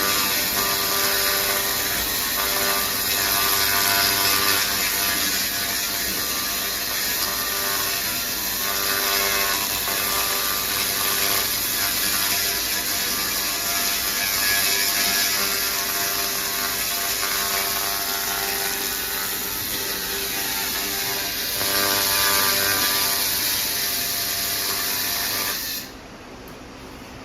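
Laser rust-cleaning machine working: a steady crackling hiss as the laser beam strips rust from metal, over the steady hum of the machine. The crackling cuts off near the end, leaving only a quieter hum.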